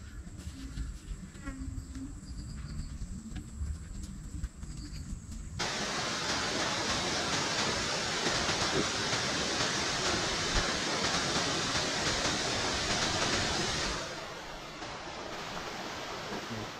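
Faint outdoor ambience with a few small high chirps, then, suddenly about a third of the way in, the steady rush of a waterfall pouring into a pool. Near the end the rush drops to a quieter level.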